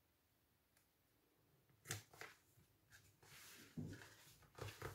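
Faint paper-handling sounds: card stock rustling and fingers pressing an adhesive paper strip onto a card, with a few soft clicks and taps, starting about two seconds in.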